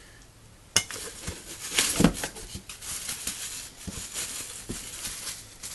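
Plastic bubble wrap crinkling and crackling as a wrapped part is handled and pulled from its packaging. It starts about a second in, with a louder crackle about two seconds in.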